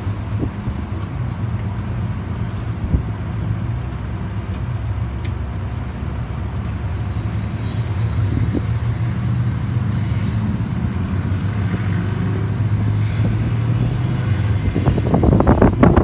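Steady low mechanical hum of a running machine.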